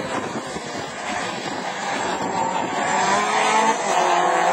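Rallycross cars' engines running hard as they race round the circuit, several engine notes together, getting louder from about halfway as the cars come closer.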